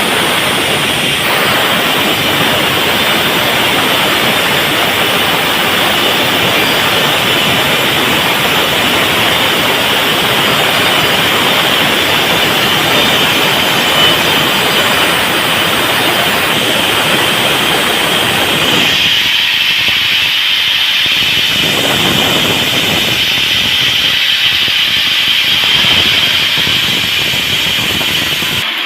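Sawmill saw running loud and steady through a teak log, a hissing, rushing machine noise with a strong high edge. Twice in the latter part the deeper part of the noise falls away for a few seconds while the high hiss goes on.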